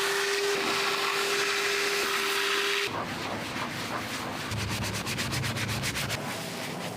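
A motorised cleaning tool runs with a steady hum and hiss for about three seconds. It cuts abruptly to fast, rhythmic rubbing or scrubbing strokes against a surface during car detailing.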